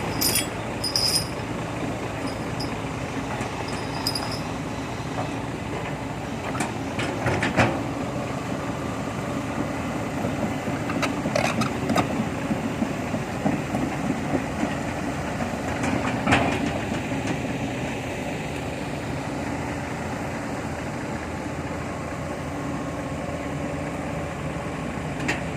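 Heavy diesel machinery engine running steadily at a low, even pitch, with a few sharp metallic knocks over it.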